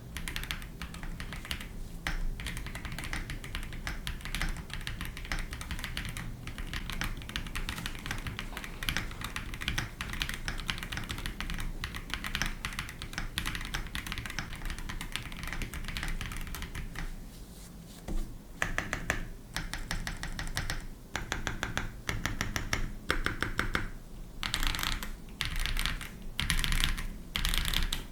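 Typing on a Cupid65 gasket-mount keyboard with pre-lubed Cupid linear switches on a polycarbonate plate in an aluminium case. The keystrokes come rapid and continuous at first, then from about 18 seconds in as separate quick bursts.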